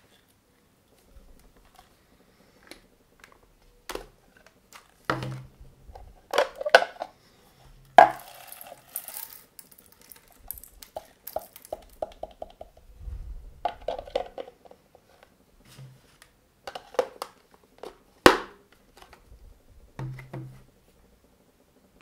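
Handling clatter of a 12 V handheld car vacuum cleaner being emptied: plastic clicks and knocks as the clear dust bowl and pleated filter come off, with small plastic bits rattling out onto a wooden tabletop. The sharpest knocks come about eight and eighteen seconds in.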